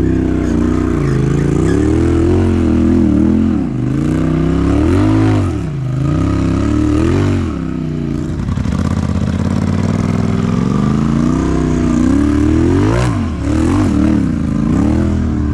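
Side-by-side UTV engine revving as it crawls up a rock ledge, its pitch rising and falling again and again as the throttle is worked.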